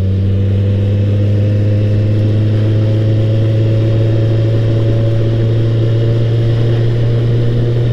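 Motorcycle engine running at a steady speed while riding, its pitch holding constant.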